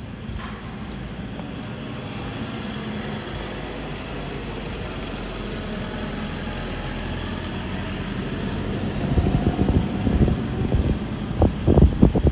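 A motor vehicle running on a wet road, its engine and tyre noise slowly growing louder. From about three-quarters in, wind buffets the microphone in loud, irregular gusts.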